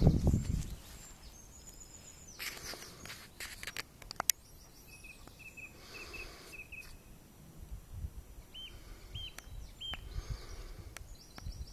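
Small birds chirping and trilling in a grassy field, with brief rustles of long grass being pushed through and a low thump on the microphone right at the start.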